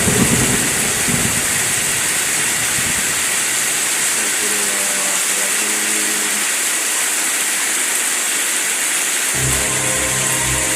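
Heavy rain and wind hissing steadily, with a low rumble of thunder dying away over the first few seconds. About a second before the end, a low pulsing hum comes in.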